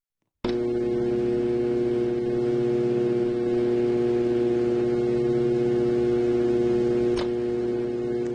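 Outdoor tornado warning siren sounding a steady tone at constant pitch. It cuts in abruptly about half a second in, already at full strength, with a short click near the end.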